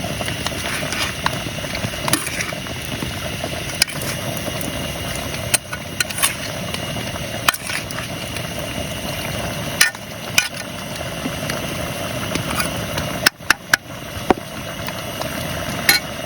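Steady hiss of heavy rain, with scattered sharp clicks and taps over it.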